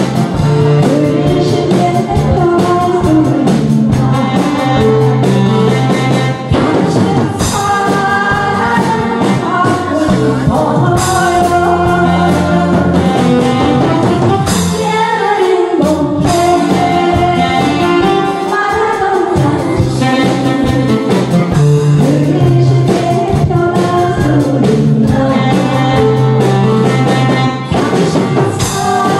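A woman singing a Korean song into a microphone over amplified instrumental accompaniment.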